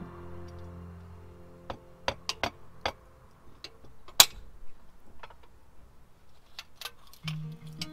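Hammer gently tapping a rag-wrapped jalousie glass pane to crack it: about a dozen sharp, separate taps at an uneven pace, the loudest about four seconds in.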